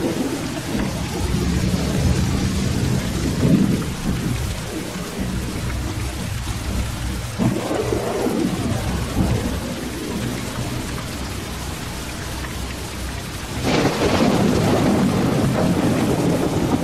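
Steady rain with thunder rumbling; the sound suddenly grows louder near the end.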